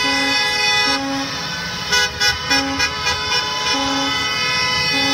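Several school buses sounding their horns together: a steady held horn chord with short toots of another horn breaking in every second or so.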